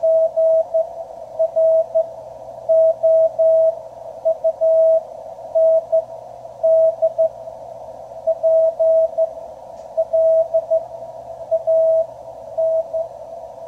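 Morse code (CW) signal received on a QRP Labs QCX transceiver: a single-pitched beeping tone keyed in dots and dashes over a hiss of band noise. The code spells out 'ground' near the end.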